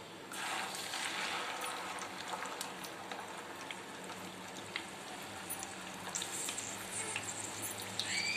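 Masala-coated fish fillet sizzling in hot oil in a frying pan: the sizzle jumps up about half a second in as the fillet goes into the oil, then carries on steadily with scattered crackles and pops.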